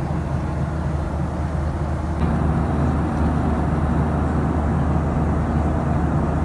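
Steady cabin noise of a Boeing 737-800 in cruise, heard inside the cabin: a low drone from the CFM56 engines and the rush of air past the fuselage. It steps up a little about two seconds in.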